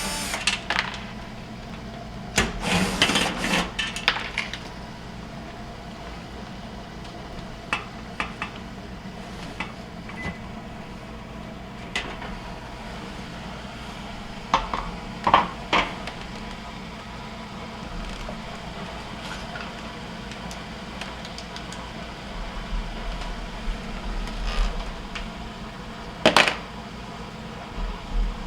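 GE Profile dishwasher running with a steady low hum from its drain pump, which is vibrating excessively and is the source of the noise. Over it, scattered clicks and metal knocks of tools and the kick plate being handled, with a cluster in the first few seconds and a sharp knock near the end.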